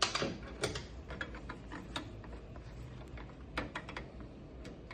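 Scattered, irregular light metallic clicks and taps of a hand wrench fumbling at a bolt and bracket, about a dozen in a few seconds.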